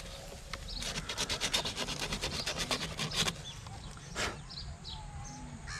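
A sheet of emery paper being torn, a quick crackling run of rips lasting a couple of seconds, then one more sharp rustle.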